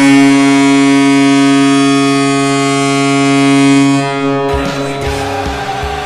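The Syracuse Crunch's goal horn blowing one long, loud, steady blast, which cuts off about four and a half seconds in. The goal song then comes in with a steady drum beat.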